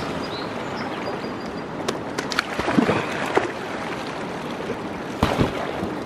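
Water splashing out of an inflatable boat tipped up on its side, over the steady rush of a river. Sharper splashes and knocks come about two to three seconds in and again near the end.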